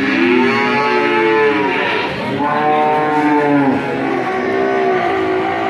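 Cattle mooing: about three long, drawn-out moos, one after another.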